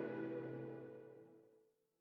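Ambient background music, a held chord fading out to silence.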